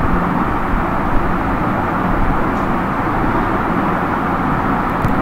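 Steady background noise, an unbroken hiss and low rumble with no speech.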